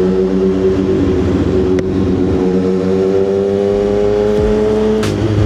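CFMOTO 675SS inline-triple sport bike with an aftermarket exhaust, running under way with a steady engine note that slowly climbs. The note breaks briefly and drops slightly near the end, like a gear change.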